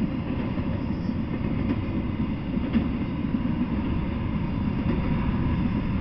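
Intermodal freight train of semi-trailers on flatcars rolling past, a steady low rumble of wheels on rails.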